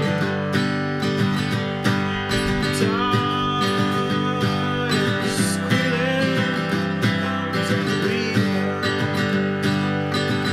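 Two acoustic guitars playing an instrumental passage together, one a metal-bodied resonator guitar and the other a sunburst flat-top, picked and strummed in a steady rhythm. A few notes slide in pitch.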